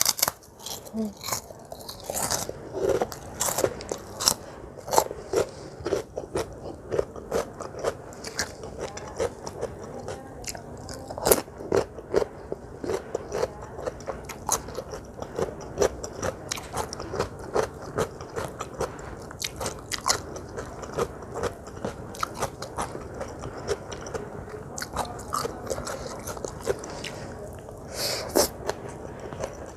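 Close-miked chewing and crunching of crisp food: a steady run of crunchy bites and chews, several a second.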